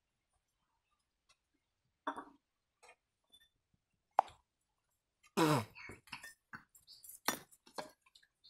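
Quiet eating sounds from a child's fingers in a stainless steel bowl of pakhala (rice soaked in water): scattered soft plops and light clinks of steel bowls, with a louder short sound about five and a half seconds in.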